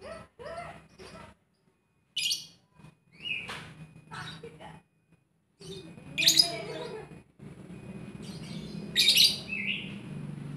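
Fischer's lovebird chirping in short, shrill bursts with silent gaps between. The loudest calls come about two, six and nine seconds in, over a low steady hum in the second half.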